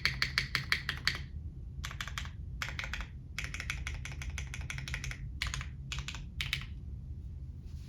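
Typing on a GEON F2-84 mechanical keyboard fitted with Cherry MX Brown tactile switches, mounted plateless. A fast, even run of keystrokes for about the first second, then short bursts of keystrokes with brief pauses between them.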